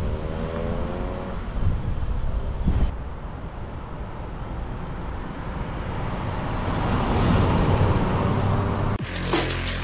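Ford Fiesta ST's four-cylinder engine accelerating away, its pitch rising, then fading into a steady rush of road and wind noise that swells again a few seconds later. Electronic dance music with a heavy beat cuts in near the end.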